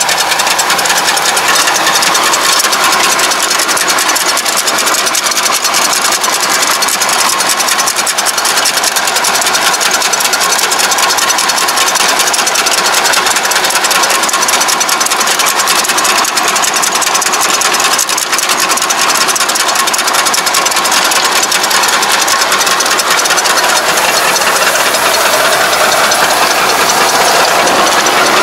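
Yanmar YT333 tractor's diesel engine running under load while its rear rotary bed-shaper churns the soil, a steady, loud mechanical running with rattling from the tines, tracks and implement.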